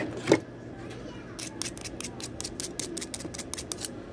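A sharp knock, then from about a second and a half in a quick run of light clicks or scrapes, about six a second, from hand tools being handled at a soldering bench.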